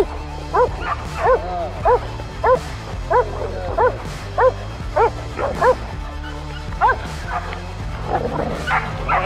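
Hunting dog barking over and over, about three short barks every two seconds, with a brief pause past the middle and a quicker flurry near the end. Background music with low sustained notes plays underneath.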